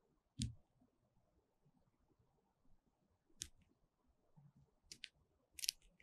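Grey-headed woodpecker pecking at food at a bird feeder: a few sharp, irregular taps over near silence, one about half a second in, one in the middle, and a quick cluster near the end.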